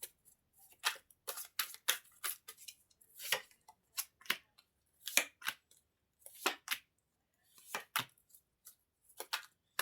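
Tarot cards being handled: an irregular run of short papery flicks and snaps, about two a second, as cards are shuffled and laid down.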